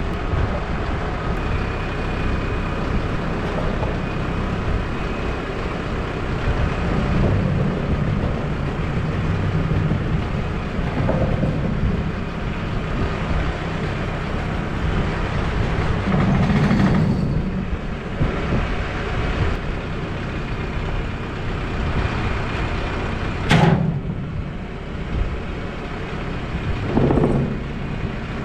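A truck's engine running while it pulls a chained mid boom section of a telescoping boom lift off the fly boom. There is a single sharp knock late on.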